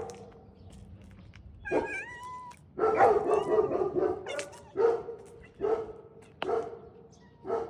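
A domestic animal giving a series of calls. A longer call with sliding pitch comes first, then a loud run of calls, then four shorter single calls spaced under a second apart.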